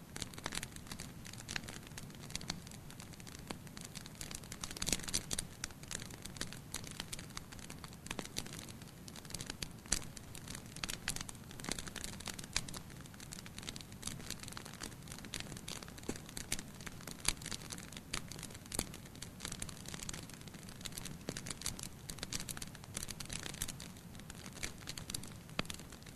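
Wood fire burning in a fireplace, crackling with many irregular sharp pops and snaps over a low steady rush of flame.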